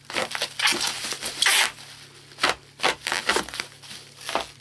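Bubble wrap crinkling and rustling in quick, irregular scrunches as hands grip and pick at a wrapped parcel to get it open.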